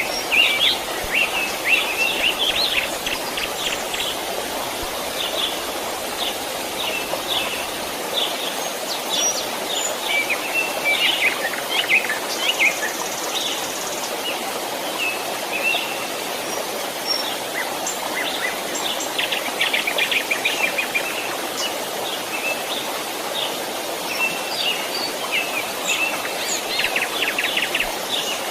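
Stream water running steadily, with small birds chirping over it in repeated bursts of rapid trills.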